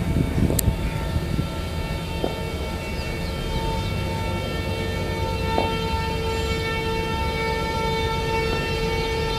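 Horn of an approaching WAP-7 electric locomotive, one long steady blast that swells in about three seconds in and is held to the end, over the low rumble of the oncoming train.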